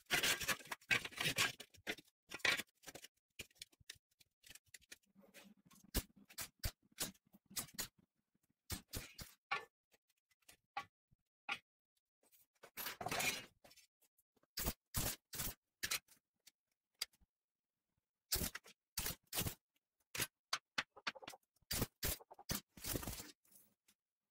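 Steel tube pieces being handled and knocked on a steel workbench, with clusters of short crackling bursts from tack-welding the frame. The sounds come in separate short spells with dead silence between them.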